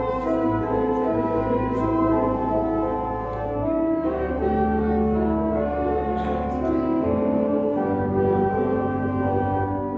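Slow instrumental music: sustained chords over long held bass notes that shift every few seconds.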